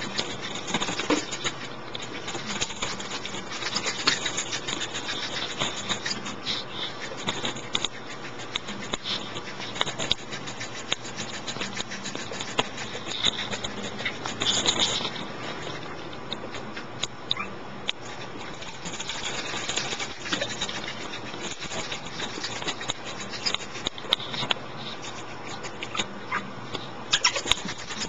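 A Pomeranian's claws and paws scratching and pattering: a long, irregular run of small clicks and scrabbles.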